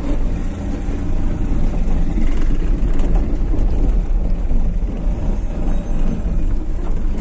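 Vehicle engine and road rumble heard from inside the cabin while driving along a dirt road, a steady low drone.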